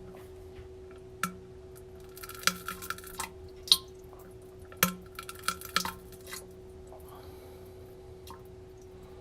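Wet drips and plops from a poop sound effect: short sharp ones, a single one about a second in, then two busy clusters in the middle, over a steady hum.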